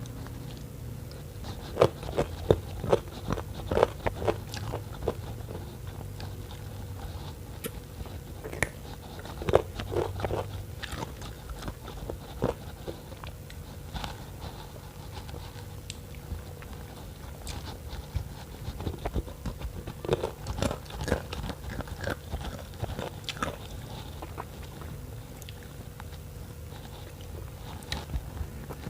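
A person eating spicy noodle soup with bones close to the microphone, chewing and biting in bursts of sharp wet clicks and smacks, with quieter pauses between.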